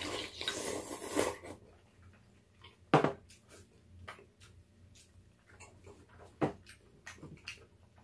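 A person slurping noodles for about a second and a half, then eating quietly with small chewing ticks. A utensil clinks sharply against the pot or bowl about three seconds in and again past six seconds.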